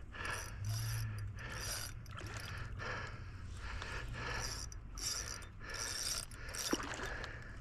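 Fishing reel working under load while a hooked queenfish is fought, a rasping mechanical whirr in repeated short bursts.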